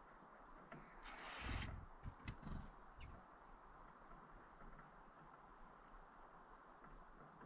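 Quiet outdoor ambience: a brief rustle and a few sharp clicks about a second in, then a faint, thin, high bird call near the middle.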